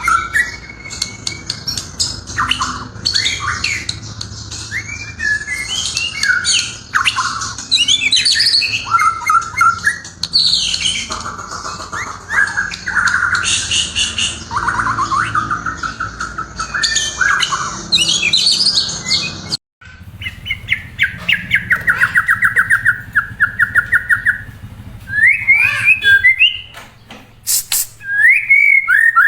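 Murai (white-rumped shama) singing loudly and close up: a run of varied whistled phrases, sliding notes and fast trills. It breaks off sharply for an instant about two-thirds through, then resumes with a long rapid trill and more whistled phrases.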